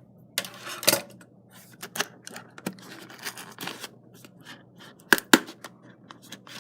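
The seals on a cardboard keyboard box are being cut open: irregular bursts of scraping, cutting noise, with two sharp clicks a little after five seconds.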